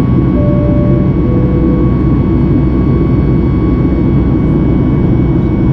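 Steady cabin noise of a Boeing 737 MAX 8 climbing, its CFM LEAP-1B turbofan engines heard from inside the cabin beside the wing, with a thin steady whine over the low rumble. About half a second in, a two-note falling cabin chime sounds.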